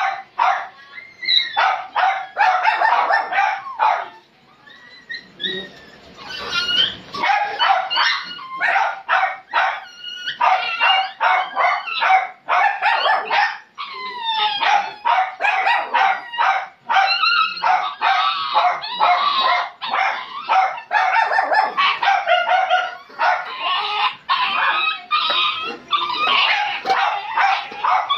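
Small dogs yipping and barking in quick, high-pitched runs, with some whining cries mixed in and a short lull about five seconds in.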